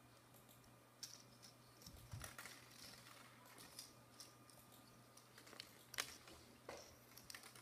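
Faint scattered clicks and rustles of plastic drinking straws, plastic beads and thin wire being handled as the wire is wound tight around a straw-and-bead pentagon, with one sharper tap about six seconds in.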